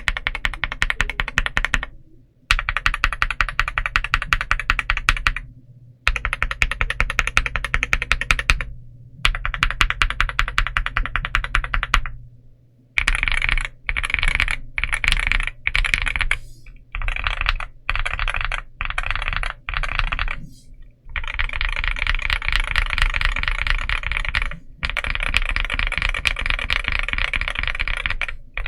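Typing sound test on an aluminum 75% mechanical keyboard: fast runs of keystrokes about two to three seconds long, broken by short pauses, with a choppier stretch of shorter bursts in the middle.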